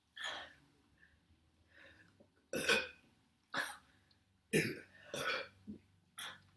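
A woman's string of short burps from a belly full of cola, about one a second, the loudest near the middle.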